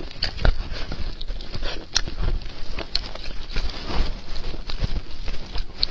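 Close-miked eating of red-braised beef bone marrow: wet chewing and smacking mouth sounds in irregular clicks and soft thumps.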